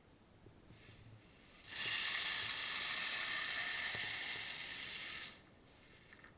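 Electric airsoft box magazine winding: a small motor and gears whirring steadily for about three and a half seconds, then cutting off, as the box is filled up for feeding.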